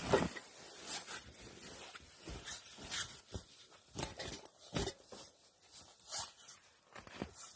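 Footsteps crunching and rustling on a floor of dry twigs and boughs, in irregular strokes about one a second. The loudest stroke comes right at the start, as a fabric bag is picked up.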